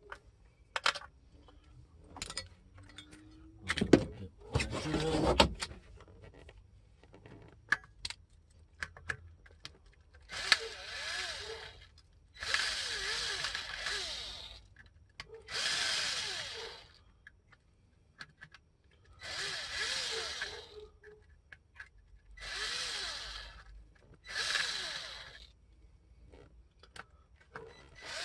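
A power drill/driver runs in six short bursts of a second or two each, spinning up and down, while parts of the distributor are taken apart. A few knocks come about four to five seconds in.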